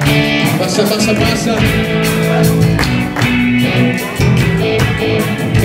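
Live band playing rock-style music: a drum kit keeping a steady beat under electric bass and guitar.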